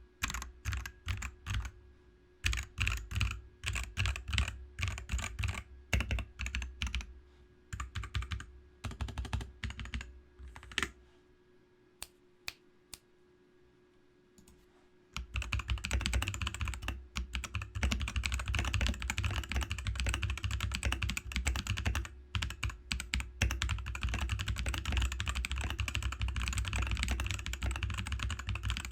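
Mechanical keyboard being typed on: separate keystrokes for about the first eleven seconds, a short near-quiet pause, then fast continuous typing from about fifteen seconds in.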